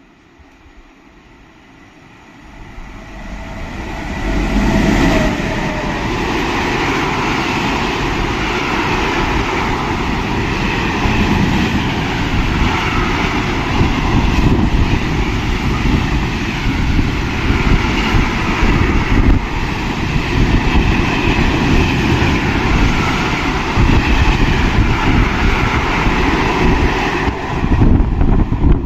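Freight train passing close by. Its rumble and wheel-on-rail noise build up over the first four seconds as it arrives, then stay loud and steady as the wagons roll past.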